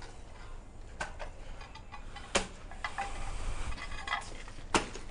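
A few sharp knocks from a digging tool striking packed earth and stones while a trench is dug, with two louder strikes about two seconds apart.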